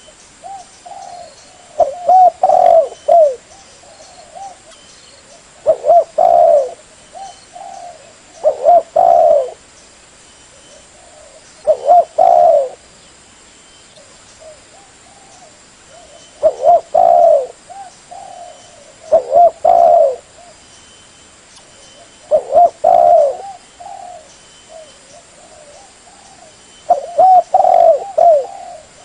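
Spotted doves cooing: about eight loud phrases of a few falling coos, repeated every few seconds, with fainter cooing in between.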